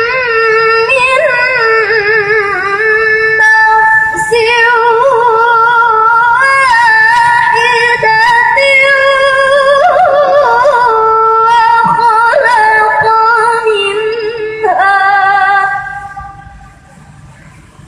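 A girl's high voice in melodic Quran recitation (qiroah), with long held notes decorated with rapid wavering turns. The phrase breaks off near the end.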